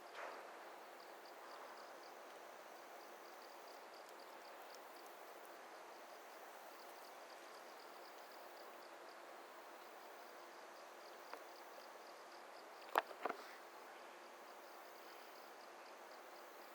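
Faint outdoor ambience of an insect chirping in steady, regular pulses over a low hiss. A sharp click comes about eleven seconds in, and two louder clicks close together follow a couple of seconds later.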